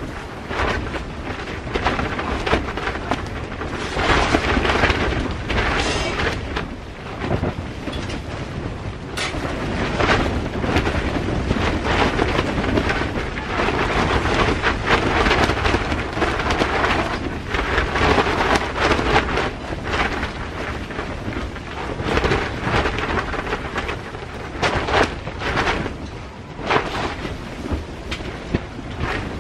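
Strong wind gusts buffeting a hot tent, heard from inside: a loud rumbling roar that surges and eases, with frequent sharp snaps and flaps of the tent fabric.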